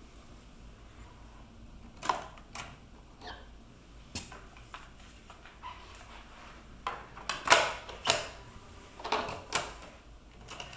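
Marantz CP430 portable cassette deck's transport being operated: a series of sharp mechanical clicks and clacks as the cassette door springs open and is snapped shut and the transport keys are pressed, the loudest cluster about halfway through.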